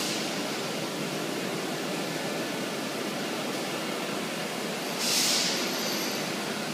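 Steady machine noise from a PADE five-axis CNC router as its head travels around a wooden tub-shaped workpiece, with a loud hiss about five seconds in that fades over about a second.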